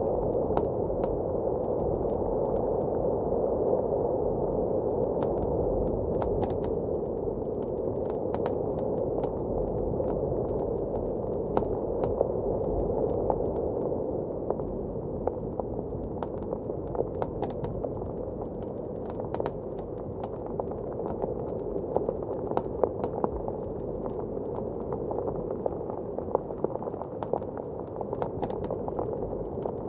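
A wood fire crackling, with irregular sharp pops scattered throughout, over a steady, muffled rush of blizzard wind. The wind eases slightly about halfway through.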